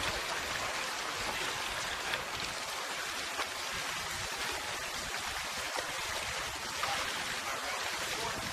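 A steady, even hiss like rain or running water, with a few faint clicks.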